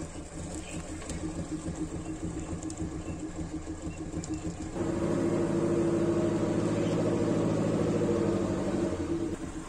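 Daihatsu Espass 1.3 van's four-cylinder petrol engine running at a steady idle, then from about five seconds in running louder and higher at a steady pitch for about four seconds before falling back to idle near the end.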